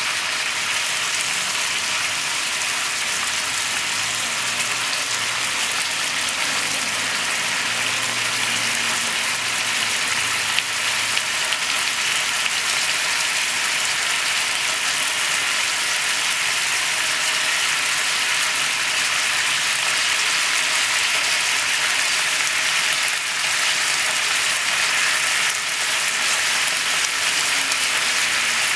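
Pork-wrapped potato sticks sizzling in a bubbling sauce in a frying pan: a steady crackling hiss that grows slightly louder toward the end.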